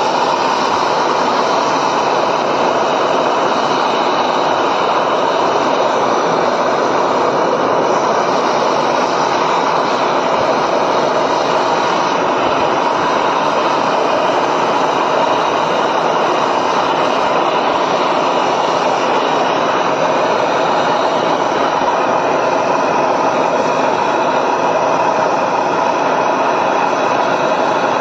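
MAPP gas hand torch burning steadily, its flame playing on a copper pipe joint at an AC compressor stub to heat it for brazing.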